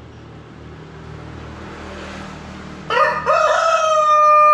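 Brahma rooster crowing, starting about three seconds in: two short notes, then one long, steady held note. A low steady background hum comes before it.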